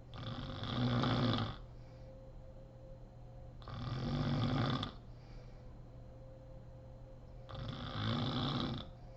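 A sleeping woman snoring: three snores a little under four seconds apart, each lasting just over a second.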